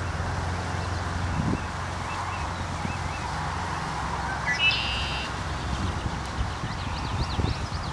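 Bird calls over a steady low background rumble: one short rising call about four and a half seconds in, and quick high chirps near the end.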